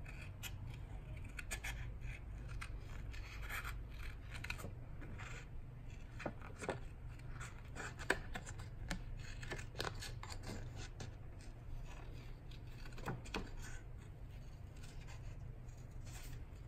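Small gold stork embroidery scissors snipping white cardstock in many short, irregular cuts, fussy-cutting around a sticker.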